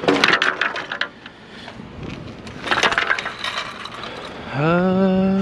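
Hard junk clattering and rattling in short bursts as a curbside scrap pile is handled and picked through. Near the end, a pitched tone rises and then holds steady for over a second.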